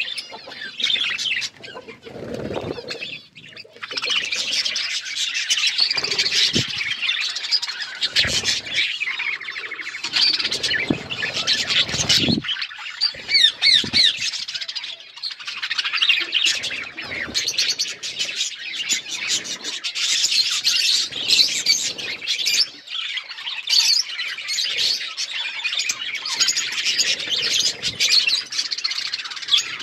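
Several budgerigars chattering and chirping without a break, many overlapping short calls, with a few soft low thuds in the first half, such as wings flapping or feet on a perch.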